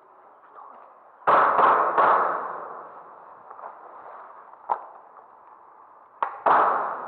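Airsoft guns firing single shots in a bare concrete corridor, each sharp report ringing with echo: three in quick succession about a second in, one near the middle, and two more close together near the end.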